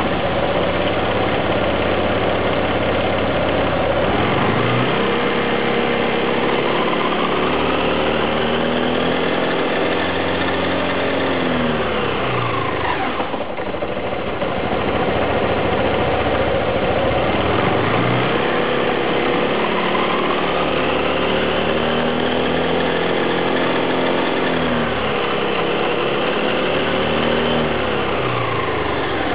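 Nikita 300i scooter running and revved up twice, each time rising to a held higher speed before dropping back toward idle, with its final-drive gear case making the abnormal noise that the owner is checking.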